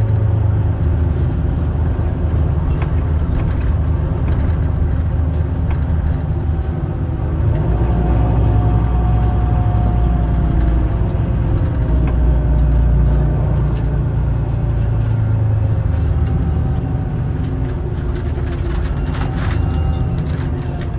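City bus in motion, heard from inside the passenger cabin: a steady low rumble of engine and road noise, with a faint whine that drifts up and down in pitch partway through. A few sharp clicks or rattles come near the end.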